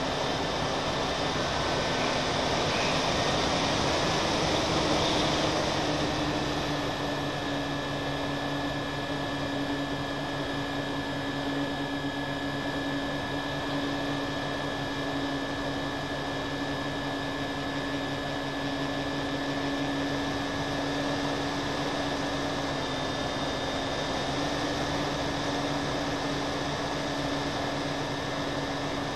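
Twin propeller motors of an RC plane running steadily, picked up by the onboard camera with wind rushing past. The hum rises a little in pitch and gets a bit louder about four to six seconds in, then holds steady.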